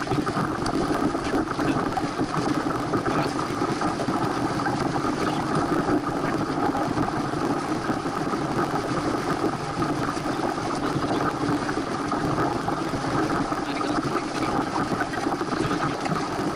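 Steady rushing of wind and water as a Santana 525 sailboat moves under sail, with no distinct knocks or strokes.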